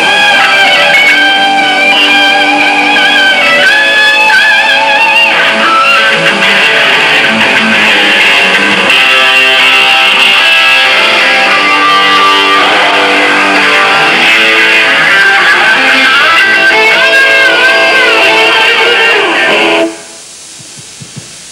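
Rock band playing loud electric guitars over bass and drums, with wavering high lead notes; the music stops abruptly near the end.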